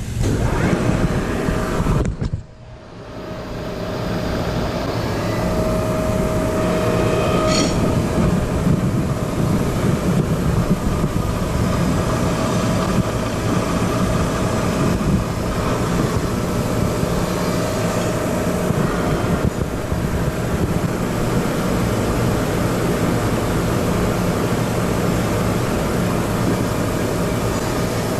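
A 20-inch Axelson engine lathe running under power: a steady mechanical rumble of motor and geartrain with a faint steady whine. About two seconds in, the sound drops away sharply and then builds back up over a second or so, as if the machine is switched off and restarted.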